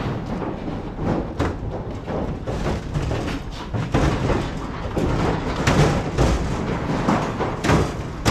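Cattle being loaded into a metal livestock trailer, their hooves and bodies thumping and banging irregularly against the trailer floor and slatted sides.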